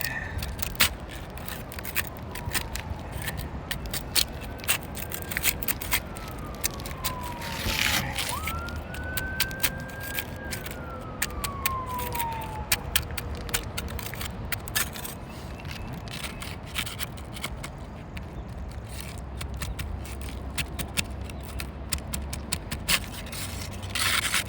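Putty knife working under asphalt roof shingles to break their adhesive seal: scattered scrapes and sharp clicks throughout. A siren rises and falls twice in the first half.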